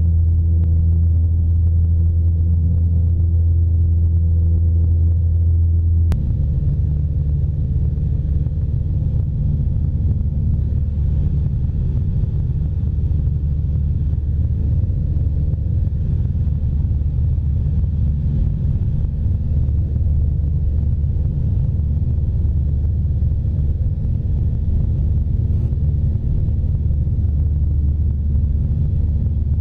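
Cessna 172's piston engine and propeller droning steadily inside the cockpit. About six seconds in the sound changes abruptly to a rougher, noisier drone that then holds steady.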